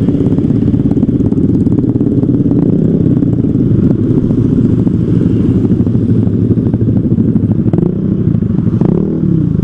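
Motorcycle engine running steadily, its pitch shifting near the end.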